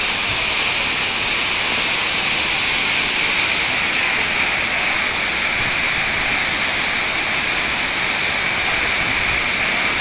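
Tall waterfall falling onto rocks and into a pool: a steady, even rush of water.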